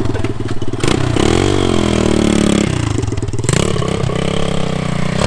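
Pit bike's small single-cylinder engine running, revved up and let back down twice with throttle blips.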